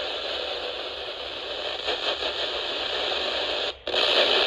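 Static hiss from a NOAA Weather Radio receiver on noisy reception, briefly cutting out for a split second near the end.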